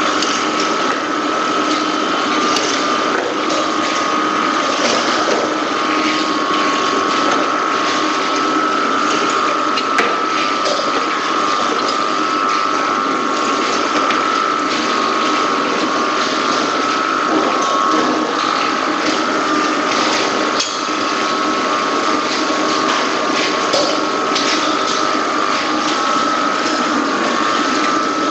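Poultry processing line machinery running: a steady mechanical whine with constant clicking and rattling.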